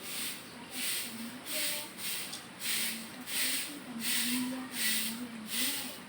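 A broom sweeping the ground in regular swishing strokes, about one and a half strokes a second.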